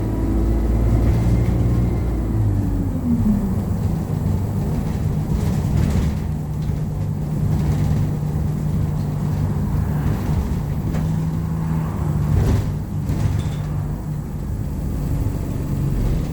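ADL Enviro200 single-deck bus heard from inside the cabin, its diesel engine and drivetrain running. The engine note falls about two to three seconds in, then settles into a steady hum with cabin rattles and a knock about twelve seconds in.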